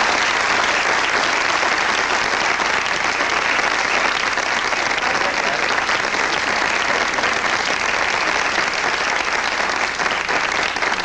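Television studio audience giving a long, steady round of applause to welcome a guest onto the set.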